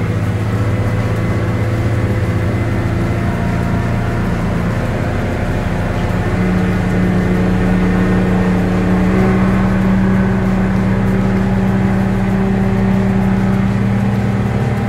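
Yamaha 300-horsepower outboard motor running steadily under way, with a loud, constant engine note whose tone changes about six seconds in.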